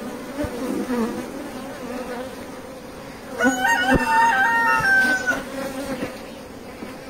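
Honey bees from an open hive buzzing steadily. About three and a half seconds in, a rooster crows for about two seconds over the buzzing, with a sharp knock in the middle of it.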